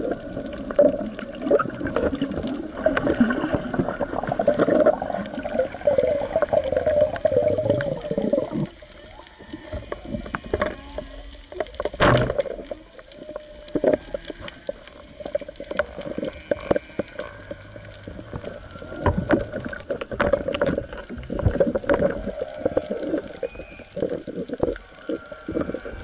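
Humpback whale song heard underwater: long wavering, gliding moans, strongest in the first eight seconds and returning more faintly later, over the reef's constant crackle of small clicks. A single loud sharp crack sounds about halfway through.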